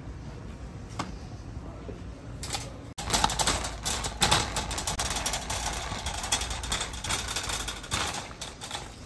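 A wire shopping cart rattling as it is pushed along a tiled store floor: a dense, fast, irregular clatter of the basket and wheels that starts about three seconds in and eases off near the end.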